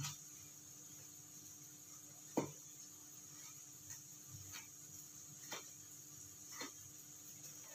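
Knife slicing a tomato on a cutting board: separate short taps as the blade meets the board, roughly one a second, the loudest about two and a half seconds in.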